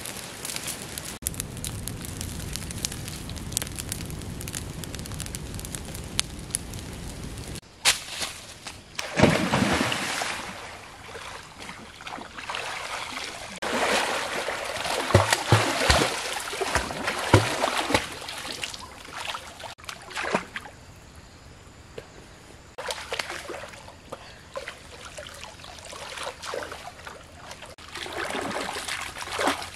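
A wood fire of sticks and dry leaves crackling for the first several seconds. It breaks off into a person swimming and splashing through a river, in uneven bursts of churning water with calmer stretches between, and more splashing near the end as she works her hands in the water.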